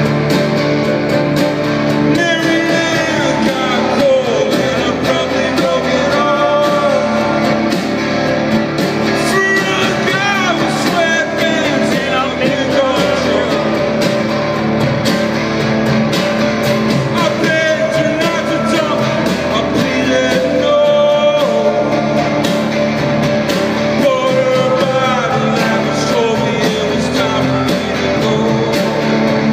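Live solo performance: a man singing over his own acoustic guitar, heard through the stage PA.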